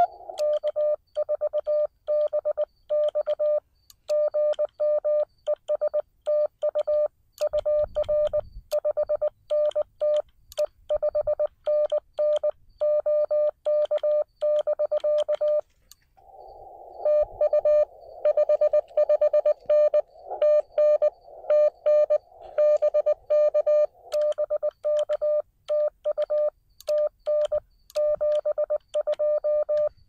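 Morse code (CW) from a Xiegu X6100 transceiver, a single steady tone keyed rapidly on and off. The first half is clean keyed sending; from about halfway through, the Morse is heard through a band of receiver hiss.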